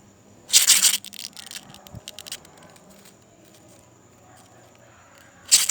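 Grasshopper giving its defensive wing buzz: two short, loud rasps, one about half a second in and one near the end, with faint clicks between. It makes this sound when it feels threatened.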